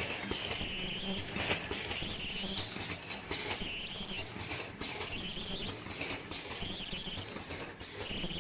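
Disposable flat mask making machine with ultrasonic earloop welders, running in a regular cycle. Short high-pitched welder whines and sharp clacks repeat about every one and a half seconds over a steady machine hum.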